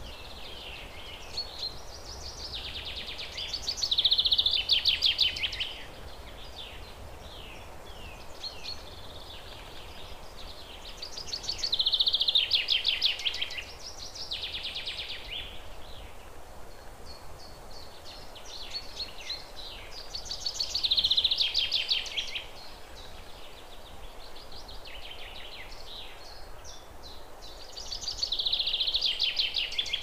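A small songbird singing loud, fast trilled phrases about every eight seconds, with softer chirps in between.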